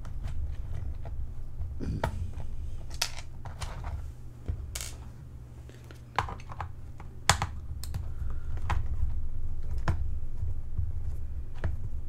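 Hand disassembly of a plastic membrane keyboard: scattered light clicks and taps of a small screwdriver and plastic case parts as screws are worked out, over a steady low hum.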